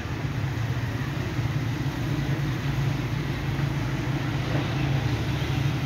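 Diesel locomotive engine heard at a distance as the train approaches: a steady low drone that grows slightly louder.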